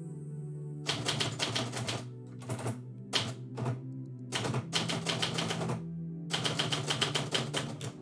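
Manual typewriter keys struck in quick runs of keystrokes with short pauses between words, starting about a second in. Background music with sustained low tones plays underneath.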